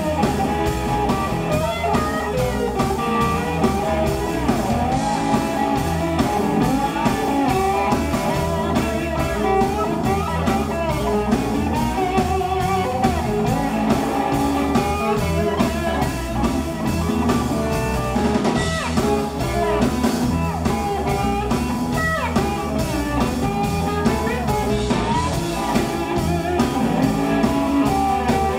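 Live electric blues band playing an instrumental passage: electric guitar lead, with notes bent up and down, over bass and drum kit.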